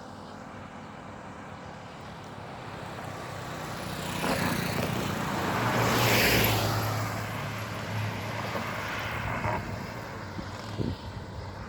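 A road vehicle passing close by: its noise builds over a few seconds, is loudest about halfway through, then fades as it moves away, leaving a low engine hum.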